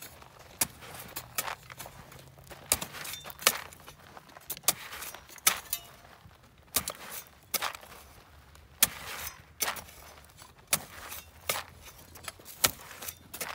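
Narrow steel spade stabbing into dry, gritty soil again and again: sharp crunching strikes, mostly in pairs, about every two seconds, as gaps in a maize furrow are resown by hand.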